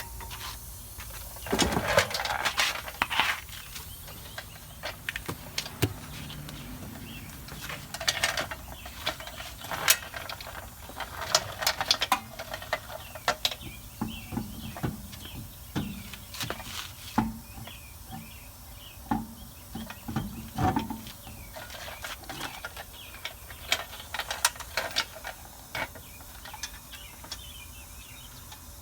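Irregular metallic clanks and clicks of a car wheel being refitted onto the hub and tools being handled, heaviest about two seconds in and again around ten, twelve and twenty seconds.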